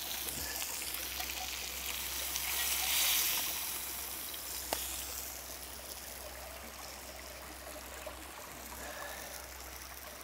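Steady hiss of kalo chunks sizzling in hot coconut oil in a cast-iron pan, blended with a stream flowing. A single sharp tap about halfway through.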